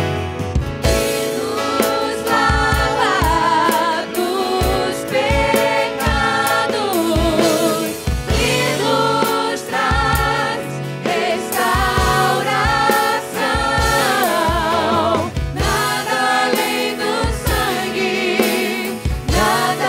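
Live worship band: several singers in unison with microphones over keyboard and guitar, with a drum kit keeping a steady kick-drum beat.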